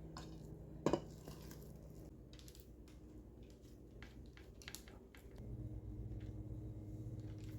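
Raw ground chicken being scooped and pressed into patties: soft squishes and small clicks, with one sharp knock of a scoop or utensil against a dish about a second in. A low steady hum runs underneath.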